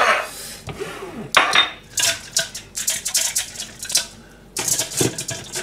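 Pots, dishes and kitchen utensils being handled and put away, a series of sharp clinks and knocks.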